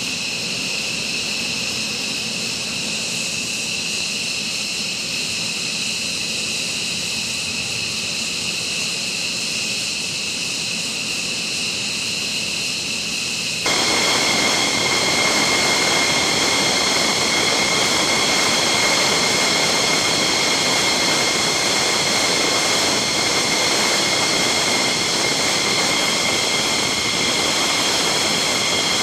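F-15 fighter's jet engines running with a steady high-pitched whine over a rushing noise. About 14 s in the sound cuts abruptly to a louder, rougher roar with a lower whine.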